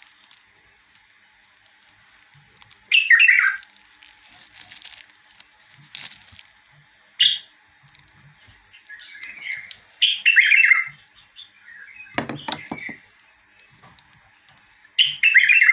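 Caged bulbul singing loud, short warbled phrases, four or five times with pauses between. A burst of plastic crackling comes about twelve seconds in.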